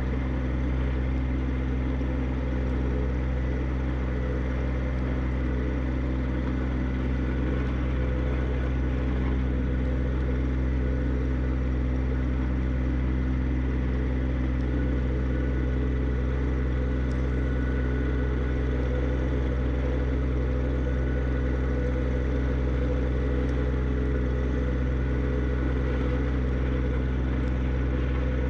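John Deere 1025R subcompact tractor's three-cylinder diesel engine running steadily at a constant speed.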